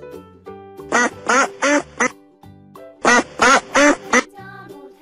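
Duck quacking: two runs of four quacks each, the second run starting about three seconds in, over light background music.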